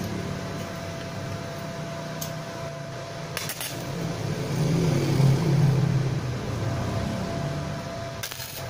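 Small inverter stick welder humming, with two short bursts of arc as an exhaust-pipe bracket is tack-welded, about three and a half seconds in and again near the end. A low rumble swells between them.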